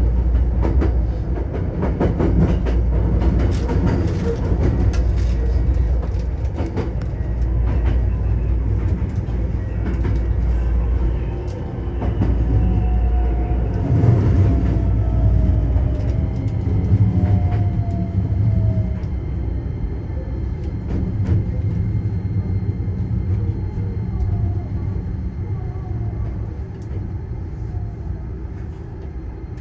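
Hankyu Kyoto Line electric train running, heard from inside the front car: a steady low rumble with clicks of wheels over rail joints. From about the middle on there are falling whining tones, and the sound slowly eases off as the train slows for its next station stop.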